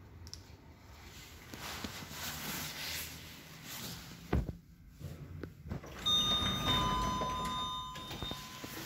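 Manually operated doors of an old KONE traction elevator being opened. The wire-mesh landing gate rattles and closes with a sharp clunk about four seconds in. From about six seconds in, a steady ringing tone of several pitches sounds over a low rumble and stops just at the end.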